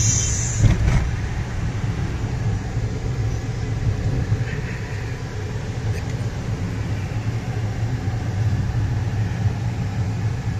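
Steady low rumble of a Daihatsu car's engine and tyres, heard from inside the cabin as the car drives along a city road.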